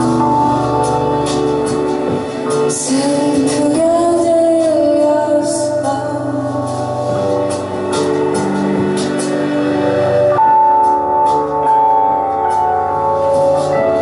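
A woman singing a slow song over held chords on an electric keyboard, with the chord changing about ten seconds in.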